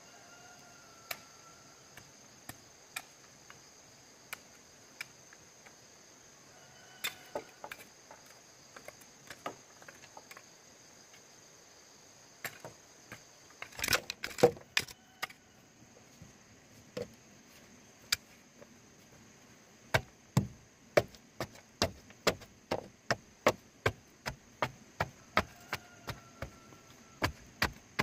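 Chopping strikes on bamboo: scattered blows at first, a loud quick cluster about halfway, then a steady run of about two to three blows a second. A steady high insect drone from crickets runs beneath.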